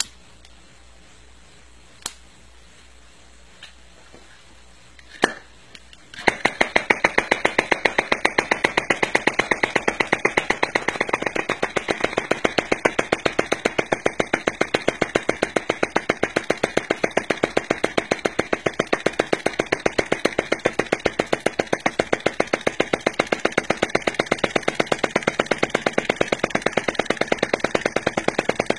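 Small model hot-air (Stirling) engine running with a rapid, very even mechanical clatter from its piston, crank and flywheel, starting abruptly about six seconds in after a few sharp clicks.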